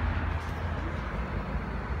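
Toshiba inverter mini-split air conditioner running: a steady rush of fan air over a low hum.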